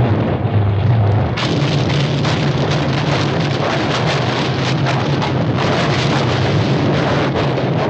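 Cartoon sound effect of ground cracking and splitting apart: a loud, continuous rumbling roar full of crackling. It turns harsher and fuller about a second and a half in.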